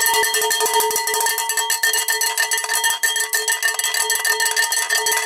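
A cowbell struck in a fast, steady run of hits, its metallic clank ringing on at the same pitch between strokes.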